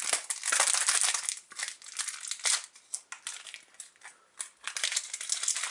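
Foil wrapper of a trading-card booster pack crinkling and tearing as it is opened by hand, loudest in the first second or so, then in shorter crackles.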